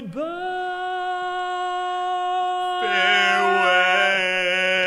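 Barbershop quartet singing a cappella: one male voice holds a long high note, then about three seconds in the other three voices come in beneath it on a sustained four-part chord.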